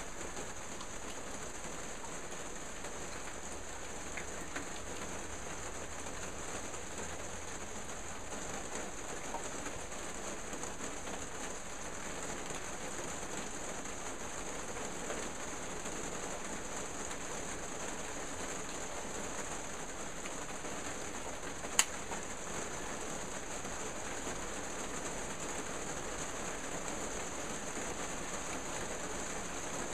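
Steady, even hiss of background noise with a fine patter to it, broken once by a single sharp click about two-thirds of the way through.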